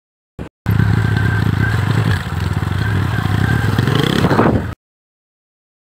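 Motorcycle engine running while riding, recorded close on the bike. The engine note dips about two seconds in and rises near the end, then cuts off abruptly.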